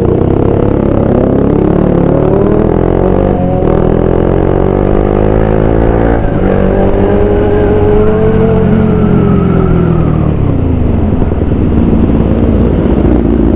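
Motorcycles running on the road, with long pitched tones from a 600 cc Yamaha R6 sport bike: the pitch rises for about three seconds and breaks off, then rises again about six seconds in, holds, and slowly falls away.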